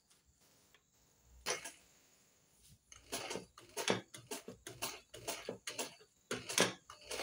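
Irregular clicks and rustling of fabric being handled and moved at a sewing machine: one sharp click a little over a second in, then a busier run of clicks and rustles from about three seconds in.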